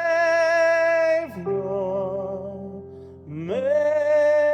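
Sung worship song: a voice holds a long note on "my", drops to a softer, lower line, then slides up into a long held note on "Savior" about three and a half seconds in, over a steady instrumental backing.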